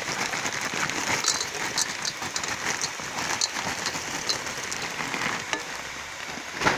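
Frozen stir-fry vegetables landing in a hot non-stick pan with chicken, sizzling and crackling steadily. A single sharp knock comes near the end.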